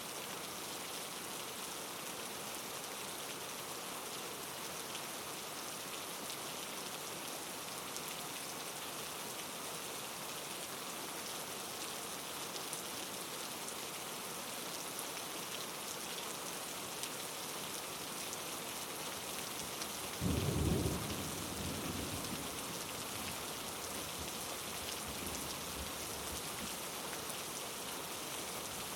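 Steady rain ambience, with a thunderclap about twenty seconds in: a sudden low rumble that fades away over a second or two.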